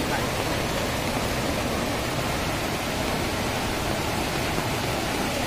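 Floodwater swollen by incessant rain rushing through a town street as a muddy torrent: a steady, unbroken rush of water.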